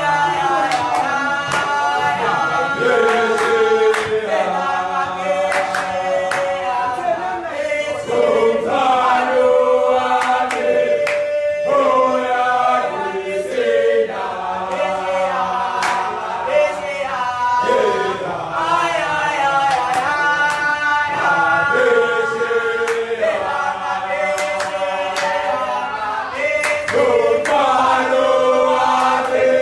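A group of teenage boys singing a gwijo, the South African team chant-song, unaccompanied in several voices, in phrases of held notes that change every second or two. Short sharp hits sound now and then through the singing.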